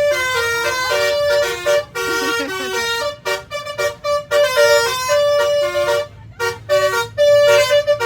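Bus 'telolet' horn, a multi-tone musical horn, playing a melody of short held notes that step up and down in pitch, over a low rumble. The notes break off briefly about six seconds in.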